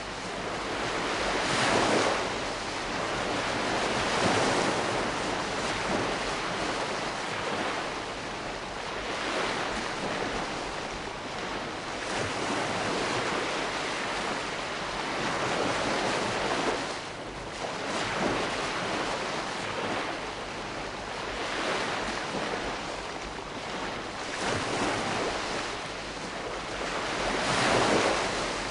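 Calm sea: gentle waves washing in and breaking in slow swells every few seconds, with a steady hiss of surf between them.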